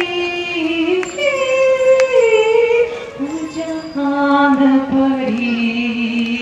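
Singing of a Hindi devotional bhajan: a singer draws out long held notes, one at the start and another after a short break about three seconds in, the second stepping down in pitch near the end.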